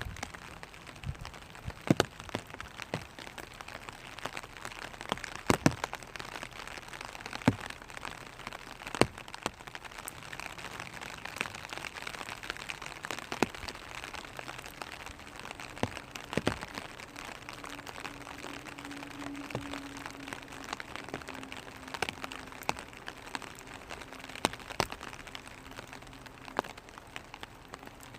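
Rain falling on a clear vinyl umbrella: a steady hiss of fine drops, with larger drops tapping sharply on the plastic at irregular intervals, every second or two.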